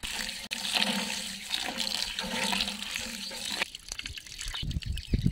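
Water splashing steadily into a steel bowl of rice for about three and a half seconds, then stopping. Softer, low sloshing follows as the rice is swished by hand in the water to wash it.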